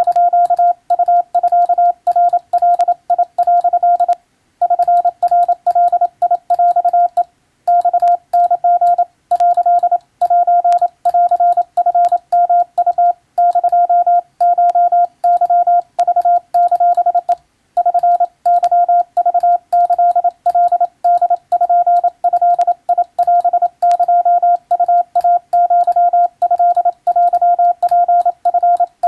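Morse code (CW): a single steady tone of about 700 Hz keyed rapidly into dots and dashes, with brief pauses between groups of characters.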